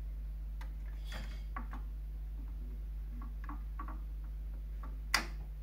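Chinon Audio Reflex PL-25 turntable's auto-return mechanism cycling at the end of a record: a string of soft mechanical clicks and taps as the tonearm lifts and swings back to its rest, then one sharp click near the end as the mechanism shuts off. A steady low hum runs underneath.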